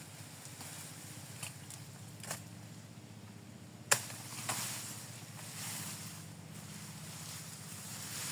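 A few sharp sickle strokes cutting grass, the loudest about four seconds in, over steady wind noise.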